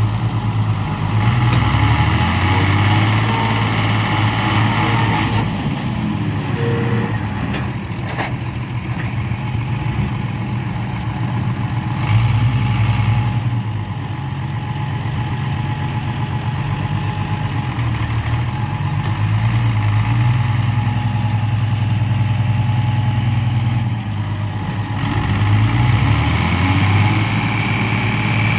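Diesel engines of a Zetor 12245 and a John Deere 6140R tractor running under heavy load, revving up and dropping back several times as they strain to pull the mired John Deere and its loaded trailers out of the mud.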